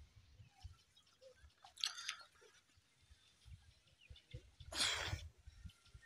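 A cast net being hauled through shallow river water and lifted out: a short splashy rush about two seconds in, and a louder one near five seconds as the net comes out of the water, over a faint low rumble.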